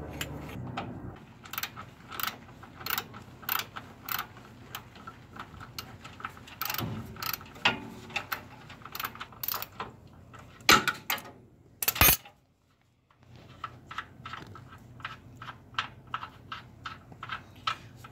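Ratchet wrench clicking in uneven runs while the lower control arm's mounting bolts are loosened, with two louder metal knocks about two-thirds of the way through. The clicks come faster and lighter near the end.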